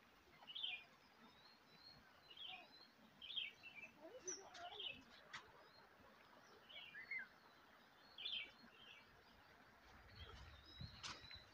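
Faint bird chirps, short high calls every second or two, with a few soft clicks.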